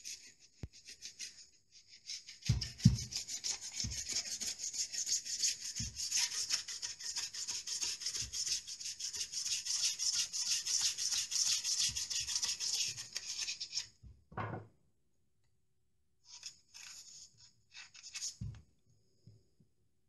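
Metal scraper blade rapidly scraping back dried expanding foam around a socket box in the wall, in quick rasping strokes. The scraping runs for about twelve seconds, stops abruptly, and a few fainter scrapes follow near the end.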